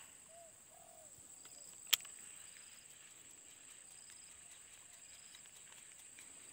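Steady high-pitched insect drone with faint, short, arched calls, broken by a single sharp click of a baitcasting reel about two seconds in.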